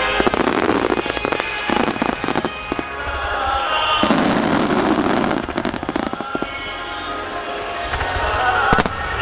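Starmine fireworks bursting and crackling in rapid succession, a dense barrage of bangs with one sharp bang near the end. Music plays along with the barrage.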